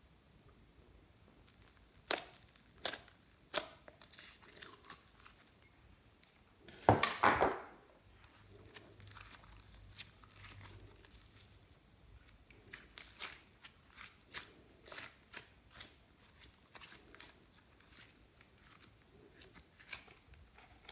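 Thick glossy slime being stretched and folded by hand, giving a run of sharp sticky pops and crackles as air pockets burst. About seven seconds in comes one louder, longer squelching burst.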